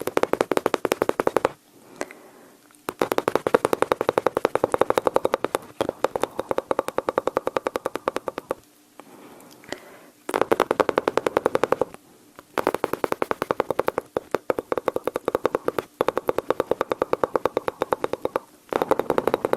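Mouth sounds imitating machine-gun fire: bursts of rapid, evenly spaced tongue-and-lip clicks, each lasting a second or two, repeated about six times with short pauses between.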